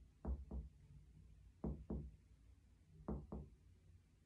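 Finger-on-finger percussion of a patient's right chest wall: three pairs of short taps, a pair at each spot, moving down the intercostal spaces in topographic percussion to find the border of the right lung.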